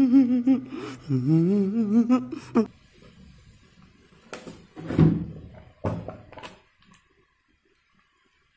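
A man wailing in a drawn-out, wavering crying voice, sliding up in pitch partway through, for about two and a half seconds. It is followed by a couple of short sounds a few seconds in, then near silence.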